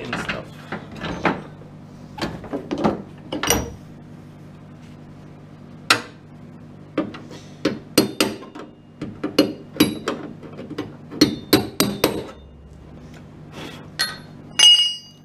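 A series of sharp, irregular metallic knocks and taps on the car's steel bodywork, about two dozen over the span, with one ringing clang near the end. A low steady hum runs underneath.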